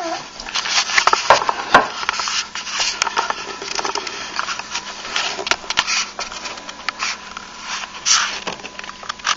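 A toddler knocking and scraping at his breakfast dishes and food: an irregular run of sharp clicks, knocks and scrapes, busiest in the first two seconds.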